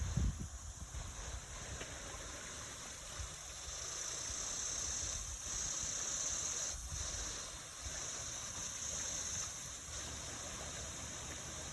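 Running water with a steady rush, and low rumbling thumps near the start.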